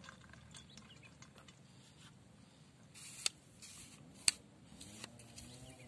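Fishing rod and reel being handled close to the microphone: scattered light clicks and rustles, then two sharp clicks about a second apart, the second the loudest. A motor's hum rises in near the end.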